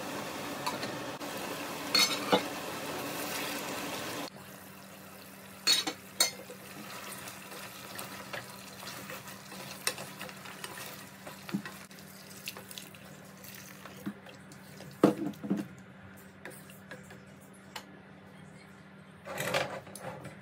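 Wooden spoon stirring chicken curry in an aluminium pot, with scattered knocks and clicks against the pot. Water runs into the pot briefly near the end.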